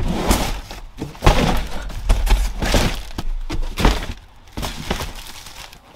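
Boxes of food being handled and loaded: a run of irregular thuds and knocks over a low rumble.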